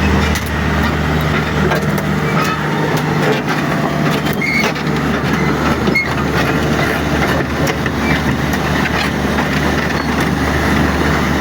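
Diesel engine of a Komatsu backhoe loader running steadily under way, with scattered clanks and knocks from the machine as it moves.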